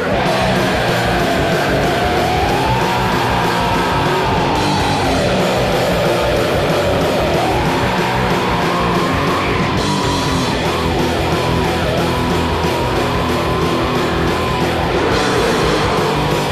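Rock band song: distorted electric guitars, bass and drums playing loud and steady, with a long wavering high note held above the band.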